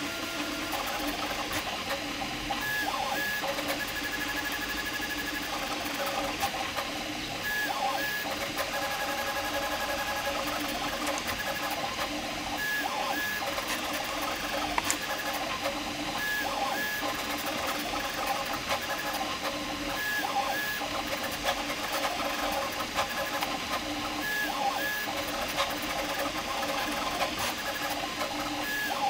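Prusa MK4 3D printer printing at high speed with input shaping: its stepper motors whine and buzz in quickly changing pitches as the print head darts about, with short high beeping tones recurring every second or so over a steady hiss.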